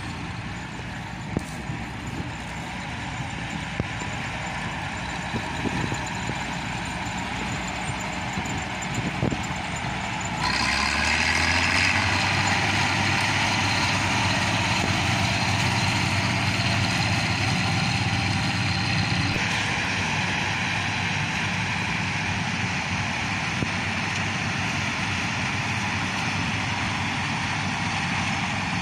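Bizon Z056 combine harvester's diesel engine and threshing machinery running steadily while cutting oats. About ten seconds in the sound jumps suddenly louder and brighter, and about two-thirds of the way through the top end eases off somewhat.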